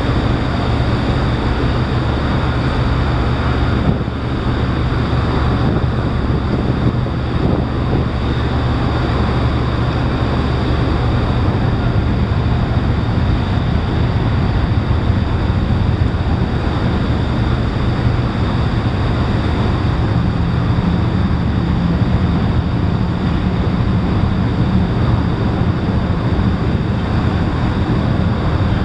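Car ferry's diesel engines running in a steady low drone, with a higher tone joining about two-thirds of the way through, over wind noise on the microphone.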